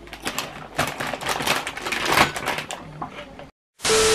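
Crunchy Doritos tortilla chips being chewed, with the chip bag rustling, a dense run of irregular crackles for about three and a half seconds. After a brief drop to silence, a TV-static transition effect starts near the end: a loud steady hiss with a steady tone.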